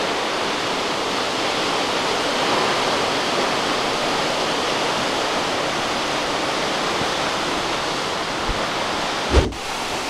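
Steady rushing of a tall waterfall: an even hiss of falling water that holds level, broken by a brief dip and a low thump near the end.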